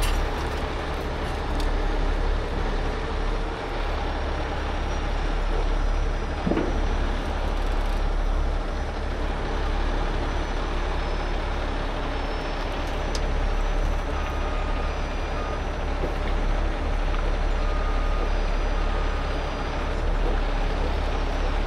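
Heavy rotator tow truck's diesel engine running steadily under load, powering the boom and winches that lift and swing a box truck on its lines.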